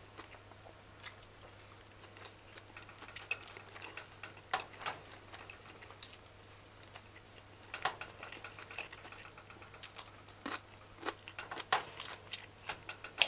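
A person eating: a metal fork scraping and tapping on a china plate of rice and vegetables, with chewing, heard as quiet, irregular clicks and crunches.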